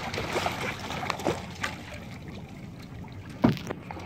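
A hooked fish splashing at the water's surface right beside a small boat as it is hauled in on a handline. A single sharp thump comes about three and a half seconds in.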